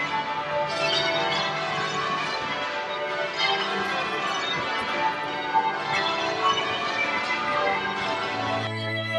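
Church bells pealing, many bells struck in quick succession so their ringing overlaps. Near the end the bells cut off and music begins.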